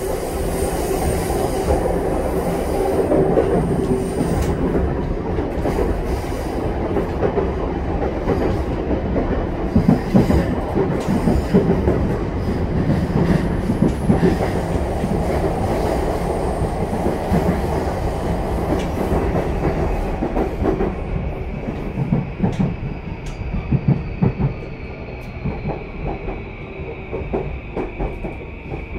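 Running noise heard aboard a JR East E235-0 series EMU motor car: steady wheel-on-rail rumble at speed. About two-thirds of the way through it quietens, and a high falling whine from the Mitsubishi full-SiC VVVF inverter sets in, with clicks from rail joints, as the train slows under braking.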